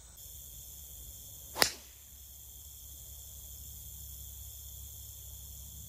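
A golf driver striking a ball off the tee: one sharp crack about a second and a half in. Insects chirr steadily behind it.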